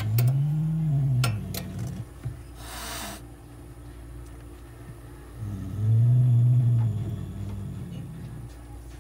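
Domestic cat growling twice, each a low drawn-out growl that rises and falls in pitch, one at the start and one about six seconds in. A short hiss comes about three seconds in.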